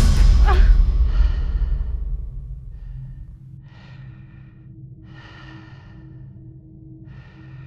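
A sudden loud jump-scare hit with a deep rumble that fades away over about two seconds. It is followed by a woman's heavy, shaky breaths, three of them spaced a second or two apart, over a low steady hum.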